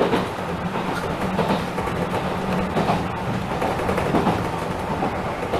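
Enshu Railway 2006F electric train running along the track, heard from the driver's cab: a steady running noise with a low hum and a few wheel knocks on the rails.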